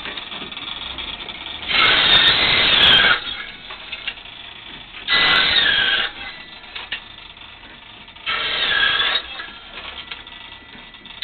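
Foot-powered table saw cutting small wooden pieces three times, each cut a loud rasping burst of about a second with the blade's ring dipping in pitch under load. Between cuts the pedal-driven blade and flywheel run with a quieter steady mechanical whir.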